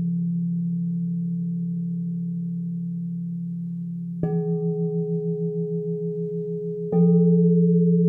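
Crystal singing bowls ringing, a deep hum with a higher tone above it slowly fading, then a bowl struck with a mallet about four seconds in and again near seven seconds, each strike bringing a fresh swell of tone. After the first strike the tone pulses quickly in a steady wobble.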